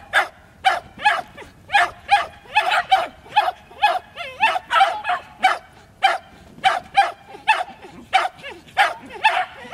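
Dog barking rapidly and continuously in short, sharp barks, about three a second, with a brief lull around six seconds in.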